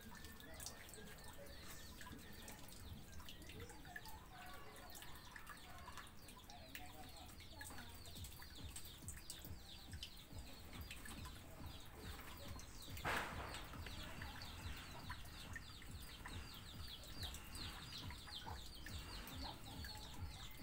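Faint outdoor background of birds calling, with a rapid high chattering that grows denser in the second half and one short noisy burst about thirteen seconds in.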